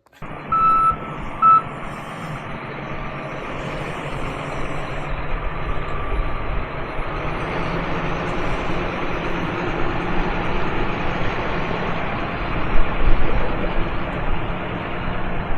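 A farm vehicle's backup alarm beeps twice near the start, then the machine's engine runs steadily, growing louder.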